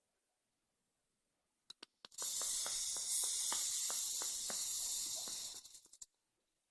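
Rebuilt Aspire BDC clearomizer head being fired and drawn on: two short clicks, then about four seconds of hissing with sharp crackles and pops as e-liquid sizzles on the hot coil and cotton wick. The hiss ends abruptly.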